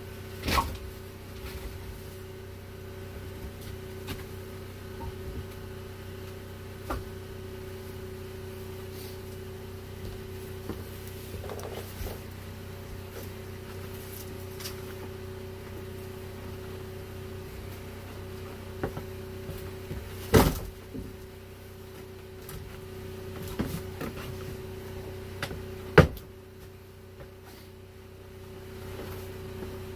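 A steady hum, with scattered sharp knocks; the two loudest come later on.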